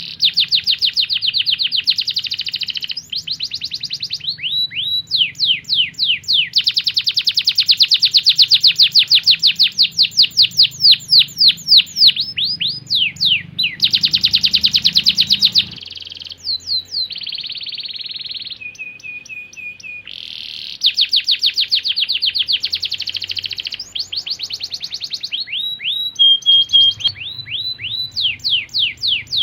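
Domestic canary in full, unbroken song. It sings long, fast trills of rapidly repeated down-slurred notes, broken by short runs of steady whistled notes, and switches phrases every few seconds.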